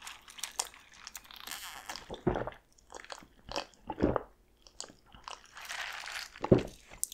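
Close-miked drinking of a carbonated Powerade-and-Sprite mix: airy sipping from the cup broken by three loud gulps, about two, four and six and a half seconds in.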